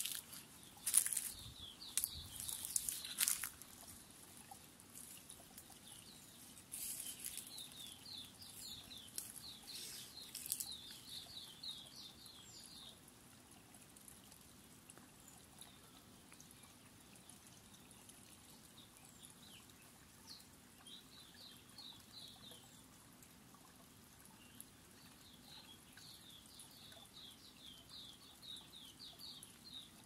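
A bird singing in runs of quick, repeated, descending high notes, several runs in all, over a faint trickling stream. Sharp crackles come in the first few seconds and again around seven to ten seconds in.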